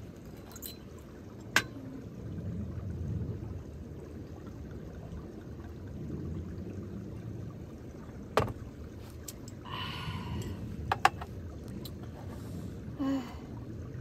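Steady rush of a valley stream, with a few sharp knocks about a second and a half in, around eight seconds in, and twice near eleven seconds.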